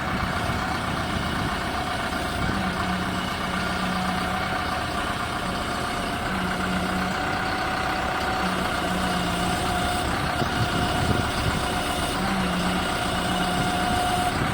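Backhoe loader's diesel engine running steadily, with a low hum that comes and goes about four times.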